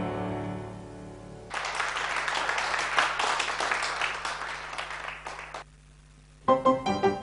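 A grand piano's final chord dying away, then an audience applauding for about four seconds. The applause stops abruptly, and near the end a violin with piano accompaniment begins.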